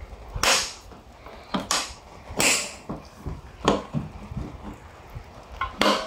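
Galvanised steel sliding latch on a trailer's rear gate being worked by hand: a series of sharp metal clacks and clanks, about six in all, as the latch bar slides and snaps into its locked position.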